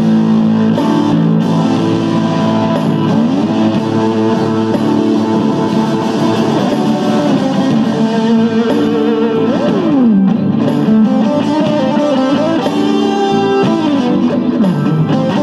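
PRS SC245 electric guitar with 57/08 humbucking pickups, played through an amp in a blues style: a continuous run of single notes and chords, with notes gliding up and down in pitch several times.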